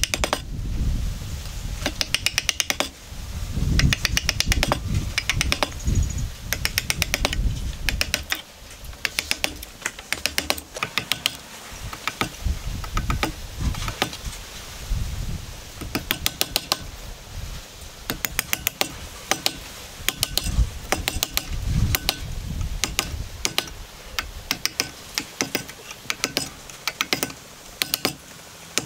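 Hand chisel chopping and paring out the waste of a wood joint: quick runs of sharp taps and cracks as the blade bites into the wood and chips break away, with heavier thuds in the first part.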